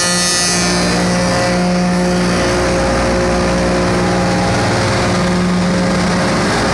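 SAC F60 window-joinery machine running, its motors and cutter spindles giving a loud, steady hum of several tones while a clamped wood workpiece is carried along on its feed carriage.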